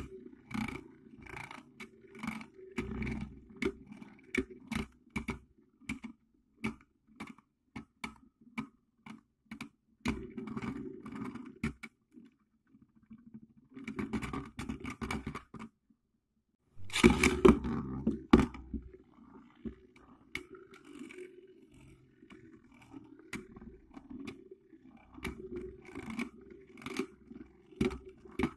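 Two Beyblade-style spinning tops whirring in a plastic dish arena, with frequent irregular clicks as they strike each other and the rim. The sound cuts out for about a second a little past the middle, then comes back with the loudest run of clashes.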